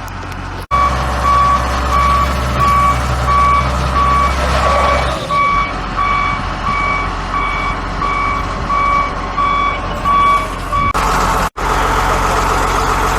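Heavy vehicle's reversing alarm beeping steadily, about one and a half beeps a second, over a running engine. The beeping stops near the end and the engine keeps running.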